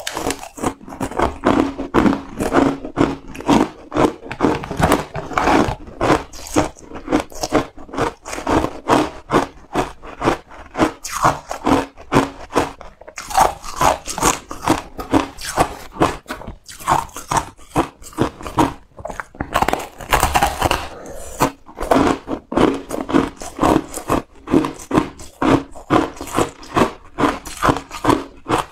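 A person biting and chewing frozen shaved ice, a steady run of loud, crisp crunches a few times a second, close to the microphone.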